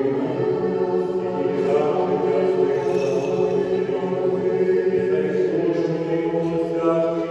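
A choir chanting slowly, several voices together on long held notes.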